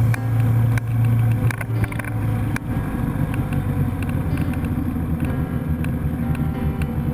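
Motorcycle engine running at road speed with wind noise, heard from a bike-mounted camera while riding.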